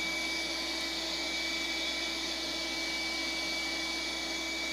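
Epilog laser cutter running as it cuts through basswood: a steady whirring hiss with a constant high whine and a lower hum.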